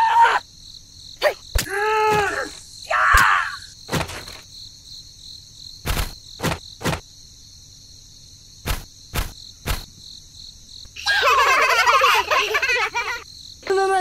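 Steady high insect chirping, like crickets, under short squeaky cartoon-style voices. About halfway through comes a string of light clicks, and near the end a burst of jumbled chatter.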